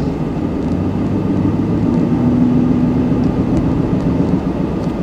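Honda Ridgeline's V6 engine and road noise from inside the cab while it tows a trailer of about 3,000 pounds: a steady drone, with an engine tone swelling for a second or so midway.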